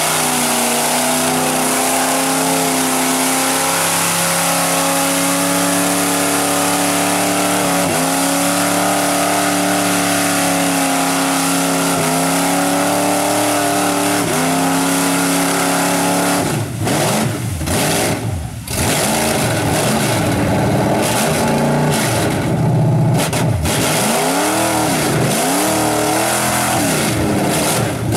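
Lifted Dodge Ram pickup's engine held at high, steady revs as it churns through deep mud, dipping briefly a few times. About two-thirds through, the throttle is pumped, and the revs rise and fall over and over.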